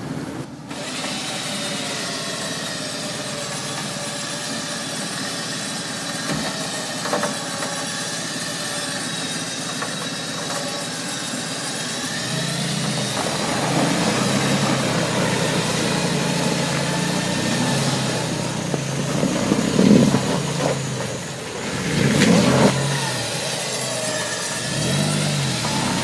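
Off-road truck engine running on the trail, with a steady whine over it for the first half. From about halfway the engine works harder, with louder rev surges twice near the end.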